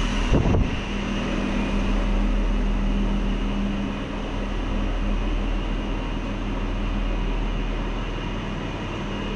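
A steady low machine-like hum with a rushing noise behind it, and a brief low thump about half a second in.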